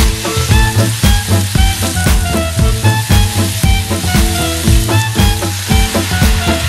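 Sliced beef sizzling as it is stir-fried in a nonstick frying pan, with chopsticks turning it; near the end sauce is poured into the hot pan. Background music with a steady beat plays throughout.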